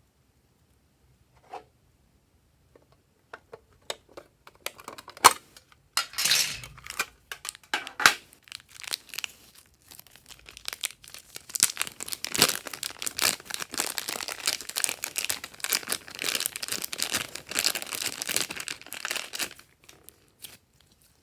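Glossy slime being squeezed and stretched by hand, giving off sticky popping and crackling clicks. A few scattered clicks at first build into dense, near-continuous crackling, which stops just before the end.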